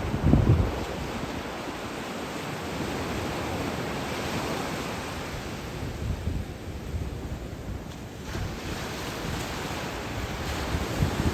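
Sea waves washing on the shore with steady wind, and wind buffeting the microphone in a low rumble about half a second in.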